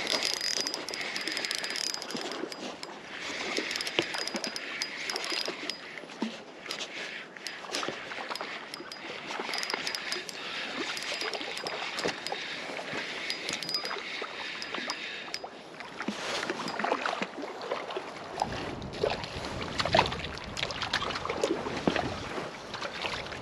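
Spinning reel being wound in against a hooked trout, a dense run of small ticks with a faint high whine, as the fish splashes in the shallows. Later there are louder splashes and sharp knocks of footsteps on wet rocks as the fish is brought to the bank.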